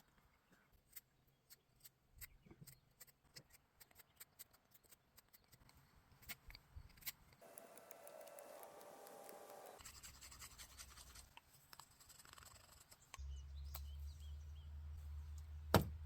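A knife whittling a small piece of wood: a string of faint, short scrapes and clicks as shavings are cut. A low steady rumble comes in about two thirds of the way through.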